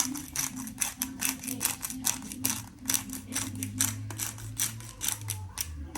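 Knife chopping cabbage on a cutting board in quick, even strokes, about four a second.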